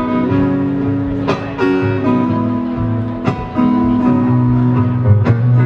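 Live rock band playing an instrumental passage: guitar chords held and changing every second or two, with three sharp drum-kit hits about two seconds apart.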